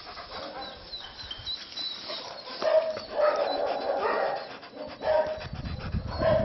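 A German Shepherd-type dog close to the microphone making a series of short barking vocal sounds from a few seconds in. A low rumble joins near the end.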